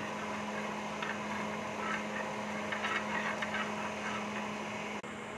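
Metal spoon spreading oil over an iron tawa, with faint light scraping now and then, over a steady low hum.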